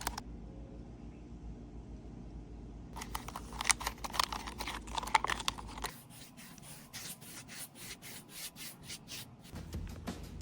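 Rubbing and scraping strokes against a surface, starting about three seconds in: a dense run of strokes, then lighter, quicker scratchy strokes to the end.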